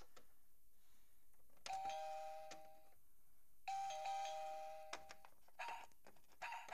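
Toy house's electronic doorbell giving a two-note ding-dong chime, rung twice about two seconds apart. A few short taps follow near the end.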